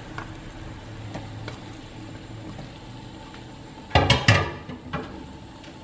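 Spiced broth in a steel wok heating on a gas stove, a low steady hiss with a few faint ticks. About four seconds in comes a brief loud clatter of kitchenware, two or three sharp knocks close together, then one lighter knock.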